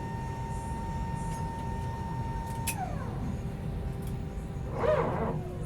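Airliner cabin noise: a steady low rumble under a high whine that drops sharply in pitch right after a click about halfway in. Near the end there is a short, loud yelp.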